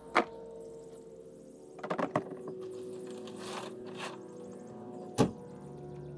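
Sharp knocks and thumps: one just after the start, a quick run of several around two seconds in, and a single loud one about five seconds in, over faint steady tones.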